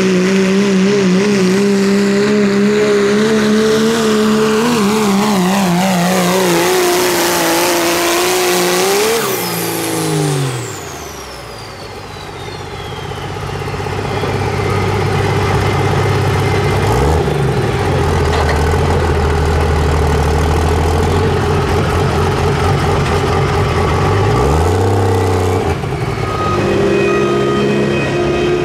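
Turbodiesel Dodge Ram pickups pulling a sled at full throttle: a high, steady engine note falls away about ten seconds in with a turbo whistle winding down. The engine then builds again to a lower, steady drone under load, rising in pitch near the end.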